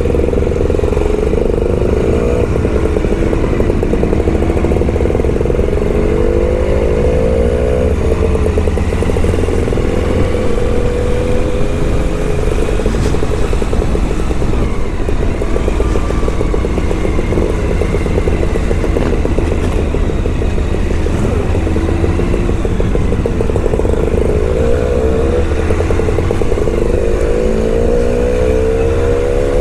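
Suzuki V-Strom 1000's V-twin engine running as the motorcycle rides along at low speed, its pitch rising a few times as it accelerates.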